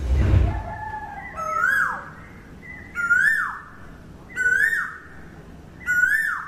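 A bird calling over and over, about every one and a half seconds; each call is a short note that slides up in pitch and then falls away. A low thud sounds right at the start.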